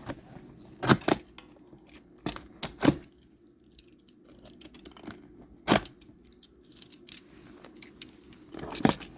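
Cardboard box and packing tape being handled and pulled open: scattered sharp crackles and rustles.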